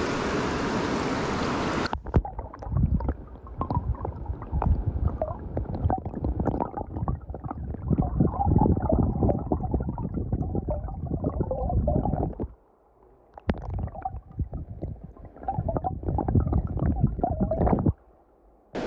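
Creek water rushing, then about two seconds in the sound turns to the muffled gurgling and irregular thumping of the current heard through a phone held underwater. Twice it drops almost to silence for about a second.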